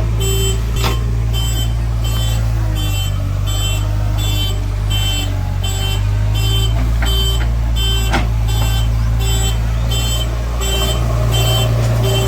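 Backhoe loader's reversing alarm beeping evenly, about two beeps a second, over its diesel engine running steadily, with two sharp clicks, one about a second in and one near eight seconds.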